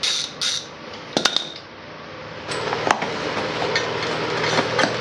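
Small metal tools and parts being handled: a couple of short scraping strokes, a sharp metallic clink about a second in, then scattered small clicks and knocks over a steady background.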